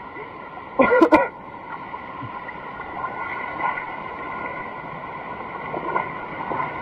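Steady rush of water from a mountain stream's waterfall. A brief loud vocal sound cuts in about a second in.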